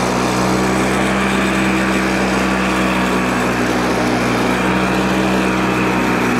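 Two-stroke engine of a Flymo petrol hover mower running steadily at constant revs while the mower hovers on the grass.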